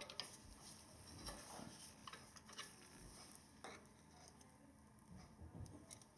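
Faint, scattered clicks and light scrapes of a steel screwdriver tip working against a brake pad and a four-piston front brake caliper as the pad is pried loose, with a few soft knocks near the end.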